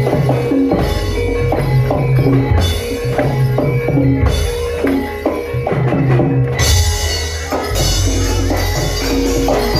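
Kuda kepang dance music: drums and other percussion keep a steady beat under ringing pitched tones.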